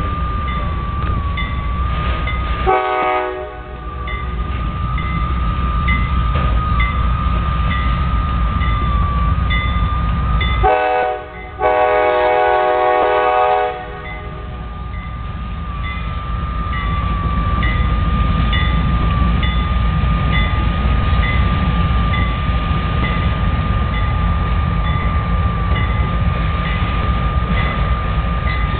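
CSX autorack freight train rumbling past, the locomotive horn giving a short blast about three seconds in and a longer blast of about three seconds around eleven seconds in. A steady high whine runs through it, with a crossing bell dinging about twice a second.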